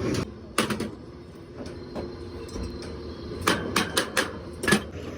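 Several sharp knocks and clicks, like metal parts or tools being handled, over a low steady hum.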